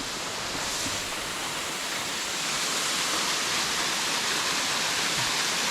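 Waterfall rushing in a steady hiss, slowly getting a little louder.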